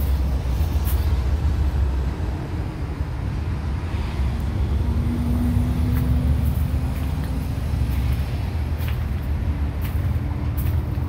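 Steady low rumble of road traffic, with the hum of a passing vehicle's engine rising over it for a few seconds around the middle and again briefly near the end.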